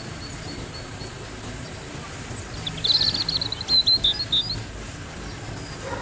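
A small bird's quick burst of high chirps about three seconds in, a fast trill followed by a few separate notes, over steady outdoor background noise.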